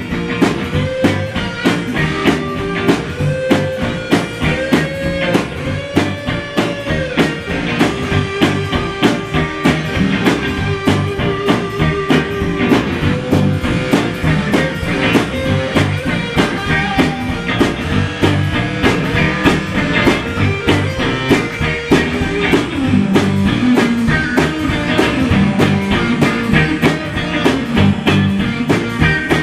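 Electric guitar and drum kit playing a rock instrumental passage with no vocals. The guitar plays a lead line with string bends over a steady beat on the drums.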